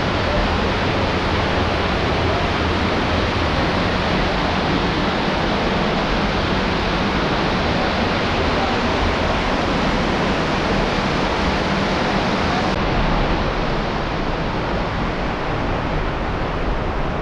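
Waterfall rushing steadily: a loud, even noise of falling water with no breaks.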